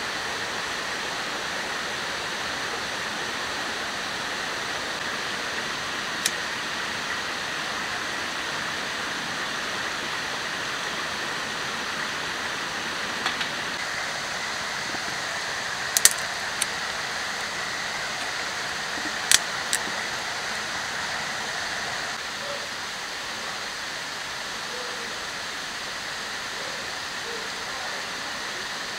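Steady rushing of a river, with a few sharp clicks and knocks scattered through it: a single one about six seconds in, then small clusters from about thirteen to twenty seconds in, as sticks and wood pieces are fed into a small folding metal wood stove.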